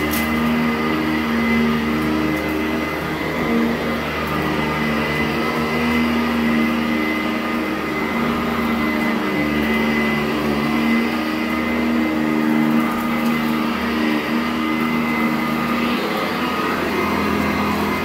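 Sanitaire SC899 direct-air commercial upright vacuum running on carpet: a steady high motor whine over a noisy hum, the low part of the hum wavering every second or two.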